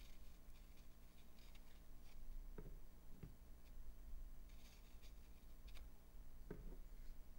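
Faint handling noises of fingertips sliding over and pressing a green foam block in a clear plastic case. There are three soft knocks, two close together near the middle and one near the end.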